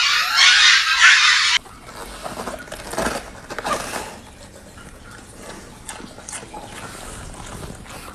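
Husky puppies yipping in high, wavering cries that cut off abruptly about a second and a half in. Then a golden retriever chews lettuce leaves, with quieter, scattered crisp crunches.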